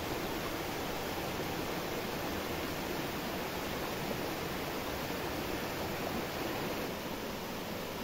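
Small waterfall pouring over rock into a plunge pool: a steady rushing of falling and splashing water.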